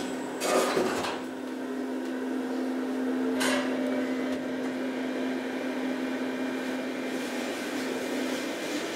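OTIS hydraulic elevator running with a steady hum. A brief loud clatter comes about half a second in and a short hiss at about three and a half seconds.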